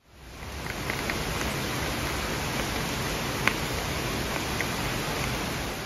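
Heavy rain falling in a steady, even hiss, with a single sharp tick about three and a half seconds in.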